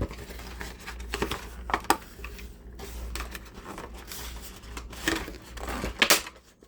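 Plastic toy packaging being handled and pulled apart: crinkling and rustling, broken by several sharp clicks and snaps, to free a toy cowboy hat.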